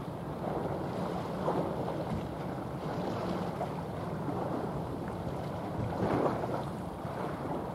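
General cargo ship under way: a steady low drone under the rush of water at its bow, with wind on the microphone that swells now and then.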